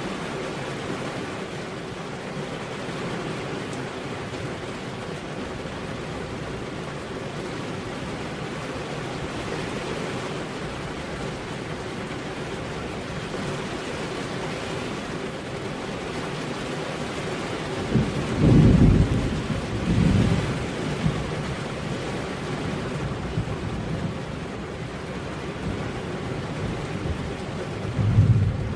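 Steady heavy rain falling on a road, with a few short, deep rumbles: two a little past the middle and one near the end.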